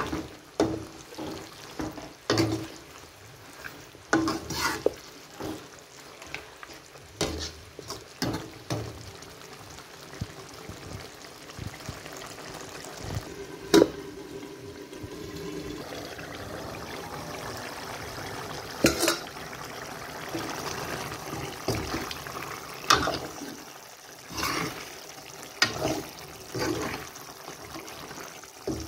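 Steel ladle scraping and knocking against an aluminium pot as a thick chicken curry is stirred, in repeated sharp clinks. Partway through, a single loud metal clank as the pot's lid is handled, then the curry sizzles steadily before the stirring clinks return.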